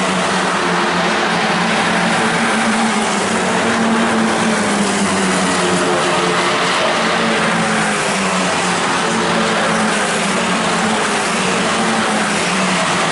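Several Formula 4 single-seaters' turbocharged 1.4-litre four-cylinder engines running hard at racing speed: a steady, loud engine drone whose pitch drifts up and down as the cars go through the corners.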